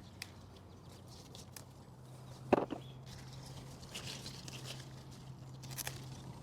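Jalapeño pepper plant rustling and clicking as peppers are picked by hand, with one sharp snap about two and a half seconds in. A low steady hum comes in about two seconds in.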